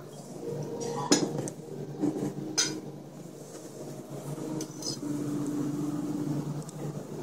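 Tableware clinking at a dining table: three sharp clinks of cutlery, dishes or glass, about a second or two apart, over a low steady hum of room noise.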